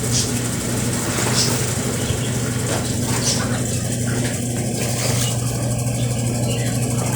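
Brastemp Ative 11 kg washing machine running: a steady motor hum with a swishing sound recurring every second or two.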